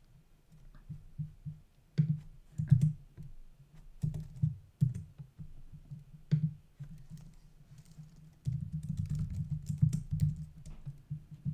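Typing on a computer keyboard: irregular key clicks with short pauses, a few harder strokes about two seconds in, and a quicker run of keystrokes near the end.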